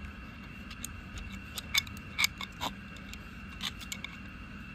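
Adjustable wrench clicking on a brass reducing bush and T fitting as the bush is screwed into the tee: a handful of light metallic clicks at uneven intervals.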